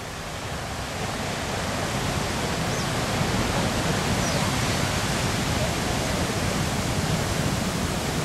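Pacific surf breaking and washing over black lava rocks: a steady rush of water noise that swells over the first couple of seconds.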